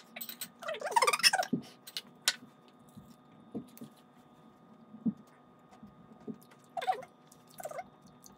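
Eating at a table: chopsticks and a wooden serving spoon clicking and knocking against dishes, with a few short, squeaky, high-pitched sounds about a second in and again near the end.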